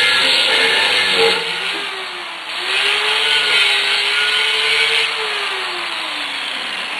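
Angle grinder with a cut-off wheel cutting through square steel tube. The tube is clamped at the far end of the vise and vibrating quite a bit. The cutting noise eases about a second in and picks up again a little later, and the motor's pitch falls away near the end as the grinder comes off the cut.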